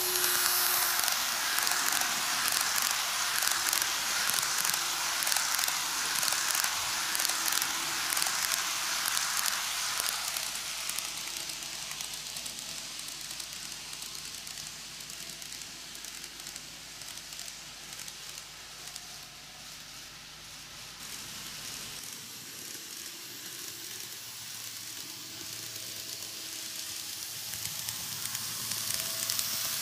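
N-gauge model train, a KATO ED79 electric locomotive hauling ten passenger cars, rolling on TOMIX superelevated track: a steady hissing, crackling rattle of small wheels on the rails. It is loudest as the train passes close at the start, fades as the train runs round the far side of the loop, and grows again as it comes back near the end.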